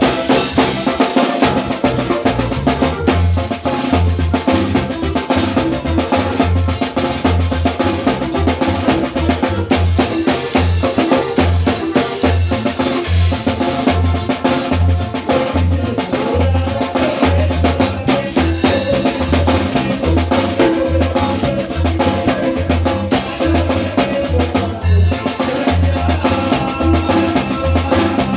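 Norteño band music with a prominent drum kit: snare and bass drum drive a fast, even zapateado rhythm over a pulsing bass line.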